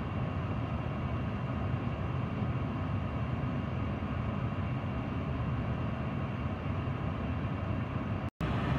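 Steady flight-deck background noise, an even hum and hiss of the airliner's cooling fans and air conditioning. It drops out for an instant near the end.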